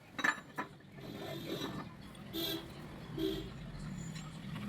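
Steel parts of a tractor gearbox countershaft assembly being handled and fitted: a sleeve slid onto the shaft with a few light metal clicks and clinks, and two brief ringing metal tones in the second half.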